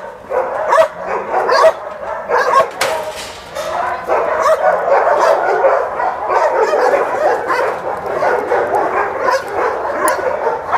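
Dogs barking rapidly and without pause. Separate barks in the first seconds thicken into a dense, overlapping din of several voices from about four seconds in.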